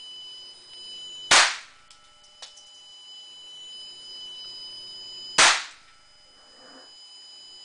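Two shots from a Walther P22 .22 Long Rifle pistol, about four seconds apart, each a sharp crack with a short ringing tail in a small room.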